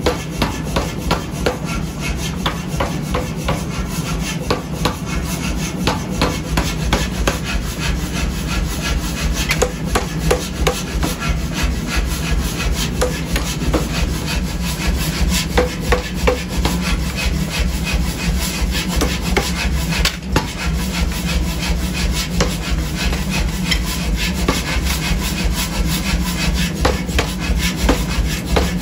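Power hammer pounding a red-hot steel hammer head held in tongs on its anvil, striking in rapid repeated blows over the steady hum of its motor.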